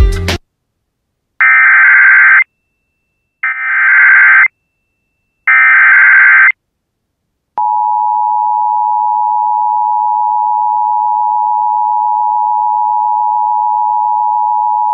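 Emergency Alert System SAME header: three data bursts of warbling tones, each about a second long, the second swelling up in level as it begins. Then, about halfway through, the steady two-tone EAS attention signal starts and holds.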